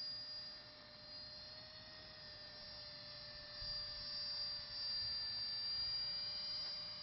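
Steady electric whine of a small drone's motors, several fixed tones held at a near-constant pitch over a low rumble, growing slightly louder about halfway through.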